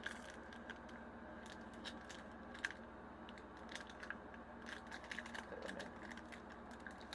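Foil Pokémon booster pack wrapper crinkling and tearing in quiet scattered crackles as it is worked open, with one sharper crackle near the middle; the wrapper is stiff and hard to open.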